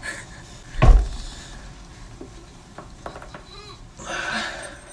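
A back-cracking manoeuvre: a heavy body thump about a second in, then a few sharp pops around three seconds in, and a breathy rush near the end.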